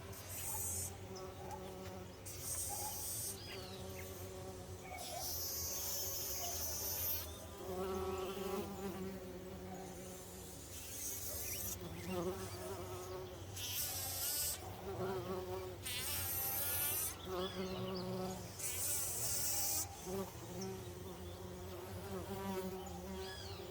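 Bees buzzing steadily around flowers, a droning hum with several overtones that swells and fades as they move. A high hiss comes and goes several times over it.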